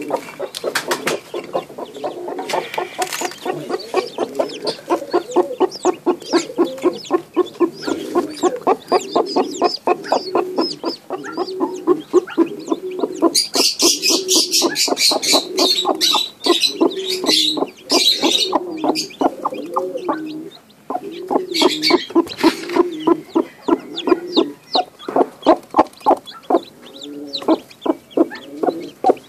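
Rooster brooding eggs and newly hatched chicks, clucking in a fast, steady run of low clucks, several a second, with brief pauses. For several seconds mid-way, higher, noisier sounds rise over the clucking.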